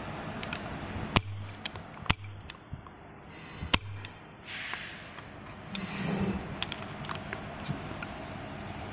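Sharp clicks and taps of a metal tool against the metal top fitting of a Mercedes-Benz W221 rear air strut, a handful scattered over several seconds, with a short hiss about halfway through.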